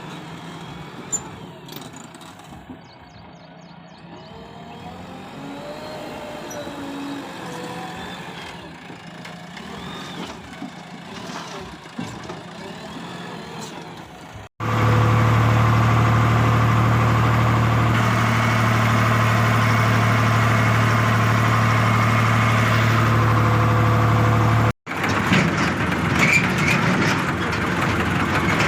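Diesel engines of farm machinery running, in separate clips joined with abrupt cuts. The loudest stretch is a close, steady engine drone from about halfway in to just before the end.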